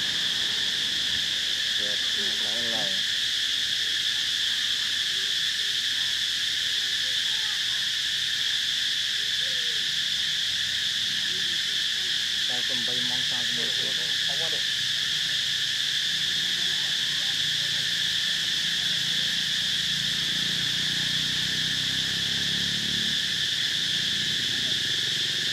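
A steady, high-pitched insect chorus drones without a break, a daytime tropical-forest background.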